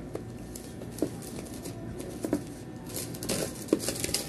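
Hands handling phone-box packaging: scattered small clicks and taps, then plastic wrapping crinkling and rustling more densely in the last second or so as it is pulled open.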